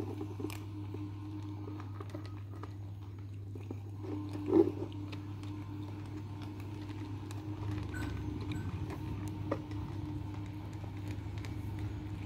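Kittens chewing and crunching a cat snack from a plastic bowl: many small, irregular crunching clicks over a steady low hum, with one short louder sound about four and a half seconds in.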